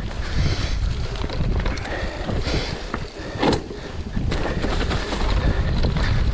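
Wind buffeting the microphone over a steady low rumble, as of a mountain bike rolling over a rough trail, with one sharp knock about three and a half seconds in.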